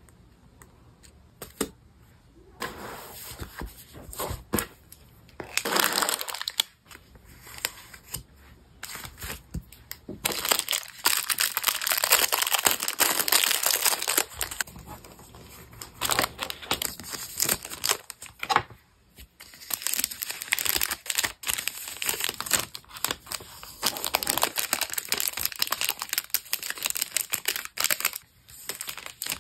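Paper and sticker sheets being handled for a journal page, crinkling and rustling in irregular bursts. The bursts run almost without a break in two long stretches, with a short quiet gap between them.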